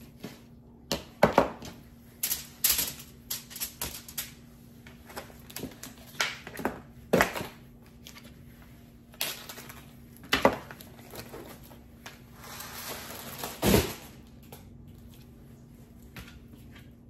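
Knife cutting raw chicken breast on a plastic cutting board: irregular sharp knocks of the blade against the board. A short scraping rustle leads into the loudest knock about three-quarters of the way through.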